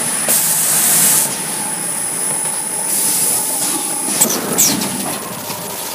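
Fully automatic bag-handle machine running: a steady high whine, two loud bursts of hiss about a second long, and a few sharp clicks near the end.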